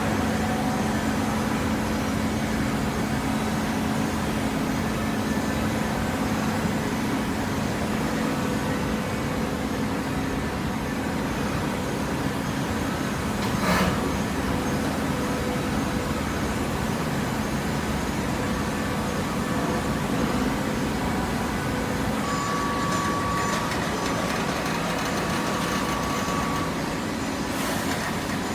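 Vertical hydraulic baler's electric motor and hydraulic pump running with a steady hum, with one sharp knock about halfway through.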